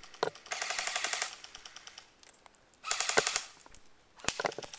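Airsoft guns firing on full auto: two bursts of rapid shots, the first about three-quarters of a second long and the second about half a second, followed near the end by a few single shots.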